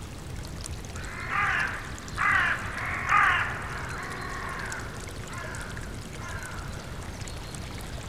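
A crow cawing: three harsh calls about a second apart, then two fainter ones, over the steady rush of a brook.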